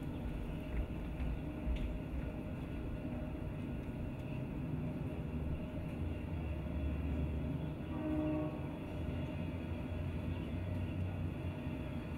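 Low steady rumble, with a brief horn-like pitched tone about eight seconds in.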